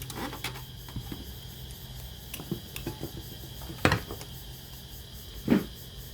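A few sharp clicks and knocks from a Sony CFS-715S radio cassette player over a low steady hum; the two loudest come about four and five and a half seconds in.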